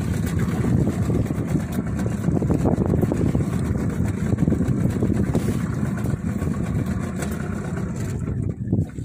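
Steady low rumble of wind buffeting the microphone in an open boat at sea, with no speech over it.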